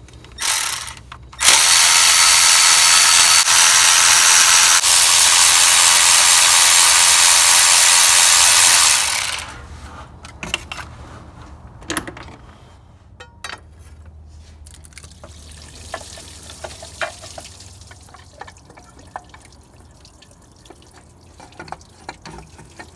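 Cordless electric ratchet running as it backs out the 8 mm water-pump bolts: a short burst, then one long run of about eight seconds. After that come scattered light clicks and knocks as parts are handled.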